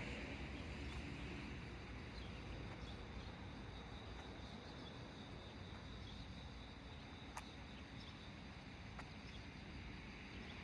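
Faint, steady outdoor background noise with a thin, high insect-like chirring and two soft clicks late on.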